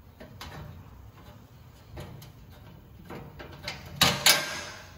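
Steel knockout blanks on a breaker panel's cover being worked by hand to snap them out: a few faint metal clicks, then a louder sharp metallic snap and rattle about four seconds in.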